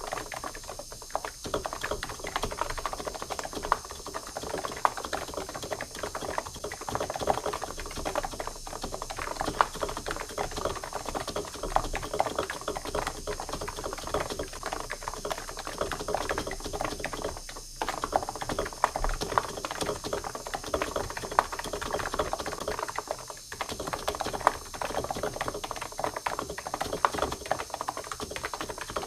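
Fast, continuous typing on a computer keyboard: a dense clatter of keystrokes, broken by a few brief pauses.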